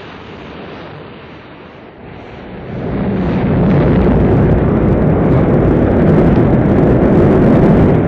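Rocket launch: the engines start with a rushing noise that, about two and a half seconds in, swells into a loud, deep, steady rumble as the rocket lifts off.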